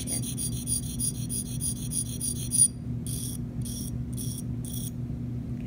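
Steel Gracey curette blade being sharpened on a flat sharpening stone: quick, even rasping strokes of stone against metal, about eight a second, that stop suddenly about halfway through, followed by four slower, separate strokes. A low steady hum runs underneath.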